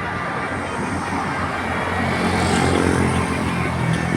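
Large bus engine running and growing louder about halfway through, with a deep rumble.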